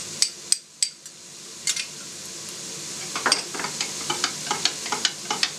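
A metal spoon clinking against a drinking glass while stirring sour cream into flour and water: a few clinks at first, then a steady run of several clinks a second from about halfway. Frying vegetables sizzle in a pan underneath.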